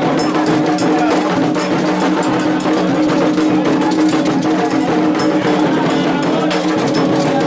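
Candomblé ritual music: drums and sharp, regularly repeated percussion strikes under sustained chanting voices.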